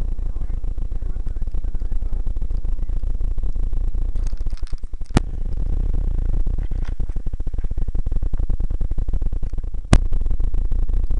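Rumble and wind buffeting on the microphone of a camera carried on a mountain bike ride, with a fast, continuous rattle from being jolted over a rough gravel trail. Two sharp clicks, about five and ten seconds in.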